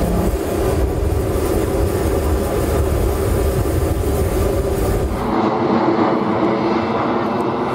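Embraer KC-390's IAE V2500 turbofan engines running, a steady, loud rumble with a steady tone through it. About five seconds in the sound changes abruptly to a thinner engine noise without the deep rumble, as the jet taxis.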